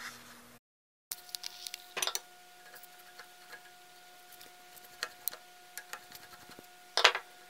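Small metal clicks and taps of a screwdriver and loose parts being handled against the edger's metal motor housing on a wooden workbench, with a louder clack about seven seconds in. A faint steady hum runs underneath.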